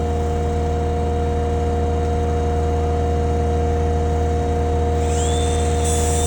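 An engine running steadily with a constant hum. About five seconds in, a high hiss starts and grows louder near the end.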